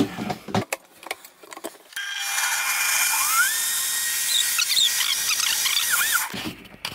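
Countertop jug blender mixing protein pancake batter. It starts about two seconds in, its motor whine rising in pitch as it spins up, runs steadily for about four seconds, then cuts off. Before it starts there are a few knocks and clicks as the jug and lid are handled.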